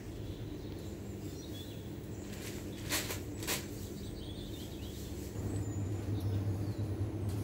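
Supermarket ambience: a steady low hum that gets louder a little after halfway, two sharp clicks about three seconds in, and faint high chirps.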